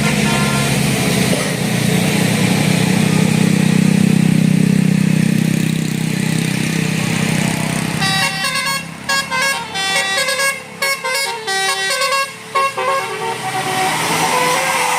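A vehicle engine runs steadily. About halfway through, a bus's telolet basuri multi-tone horn plays a melody of short stepped notes with brief breaks between them, lasting about five seconds.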